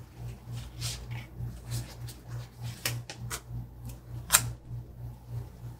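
Planner stickers and paper being handled: scattered rustles and sharp little clicks, the sharpest about four seconds in, over a low hum that pulses steadily.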